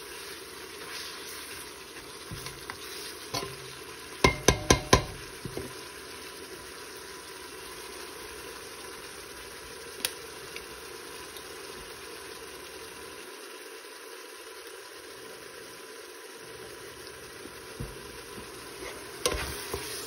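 Ground beef sizzling steadily as it browns in a stainless steel pot, stirred and scraped with a spoon. About four seconds in come four quick, sharp knocks of the spoon against the pot, with a lone click later and a few more knocks near the end.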